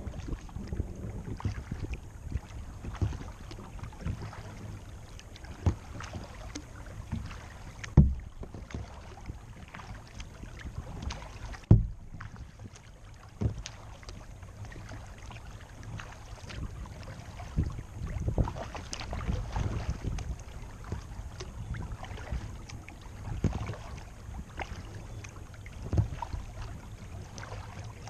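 Paddling a plastic kayak on calm water: irregular paddle strokes splashing, with short knocks carried through the hull, a few of them louder, over a low steady rumble.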